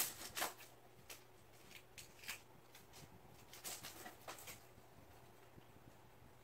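Faint, short scuffs and taps, a dozen or so, bunched near the start and again about four seconds in, from a cat's paws moving and rearing up on a wooden floor.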